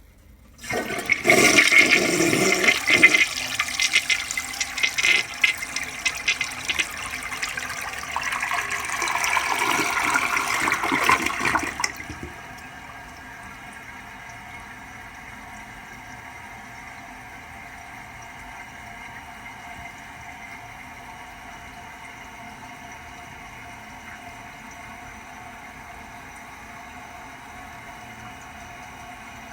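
Toilet flushing: a loud rush of water starts about a second in and surges again before cutting off sharply at about twelve seconds. It then settles into a steady, quieter hiss of water running as the cistern refills.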